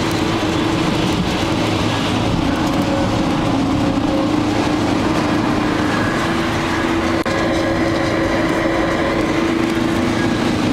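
Steady drone of a car driving fast on a wet road, heard from inside the cabin: engine and tyre noise with a constant low hum.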